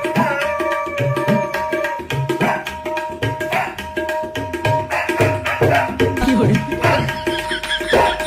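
Tabla playing a fast rhythm over a steady sustained drone note, with the bass drum's strokes bending in pitch.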